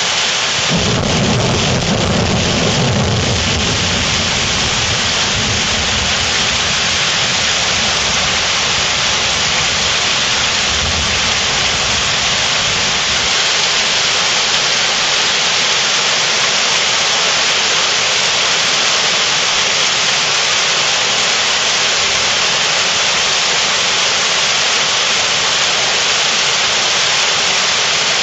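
Heavy rain pouring down steadily in a thunderstorm. A long roll of thunder rumbles low underneath, loudest in the first few seconds and dying away a little before halfway.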